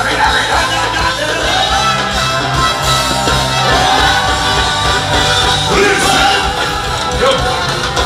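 Loud live music through a concert PA, with a man singing into a microphone over a steady bass line.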